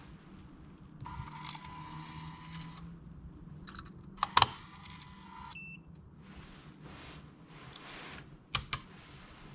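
Fujikura 70R+ ribbon fusion splicer working: its internal motors whir for a couple of seconds, two sharp clicks follow, then a shorter whir and a short beep. Near the end the fibre clamp lids snap shut with two clicks.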